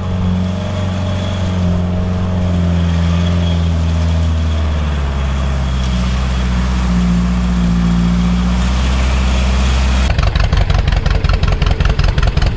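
Vehicle engine running steadily. About ten seconds in, the sound cuts abruptly to a close engine idling with a fast, even pulsing beat.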